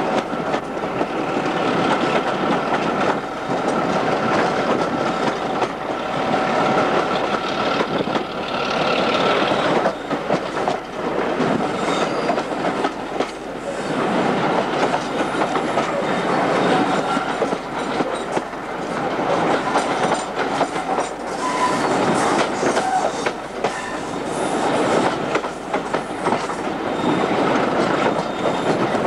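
Passenger coaches of a train hauled by a Class 08 diesel shunter running along jointed track, heard from an open carriage window: wheels clicking over the rail joints under a steady rush of running noise.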